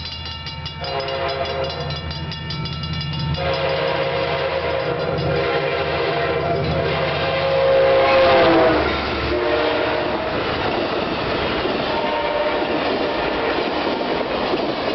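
Amtrak diesel passenger train passing close by at speed: the locomotive's horn sounds long blasts that get louder as it approaches and drop in pitch as it passes, about eight seconds in. Then comes the rumble and clickety-clack of the passenger cars rolling by.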